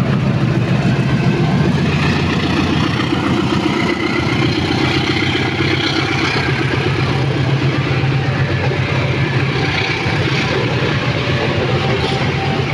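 A CC206 diesel-electric locomotive passes close, its engine running loud and steady under power, followed by a long train of passenger coaches rolling by on the rails.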